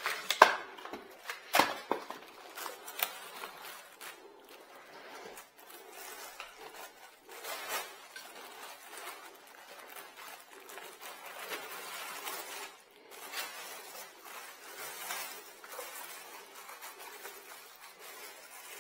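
Unpacking noises: packaging rustling and parts being handled, with a few sharp knocks in the first two seconds.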